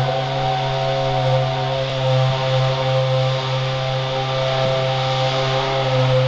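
Ferrari F60 Formula One car's 2.4-litre V8 idling steadily in the pit garage, holding one even pitch with no revving.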